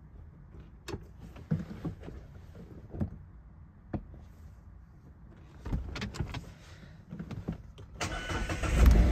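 A few faint clicks and knocks, then about eight seconds in the ND Mazda MX-5 Miata's four-cylinder engine cranks and fires, rising to a steady run. This is its first start on fresh oil right after an oil change.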